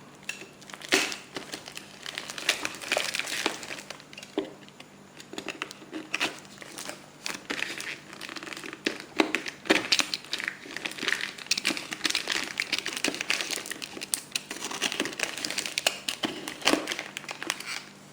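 Parcel wrapping being unwrapped by hand: packaging crinkling and crumpling with irregular sharp crackles and some tearing.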